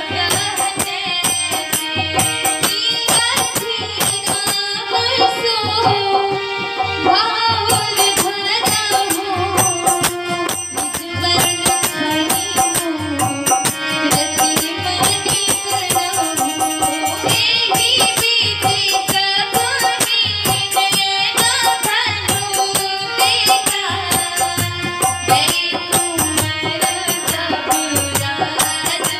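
A devotional bhajan: a woman's voice singing a bending melody to a harmonium's held chords, with small hand cymbals (manjira) striking a steady beat and low drum strokes underneath.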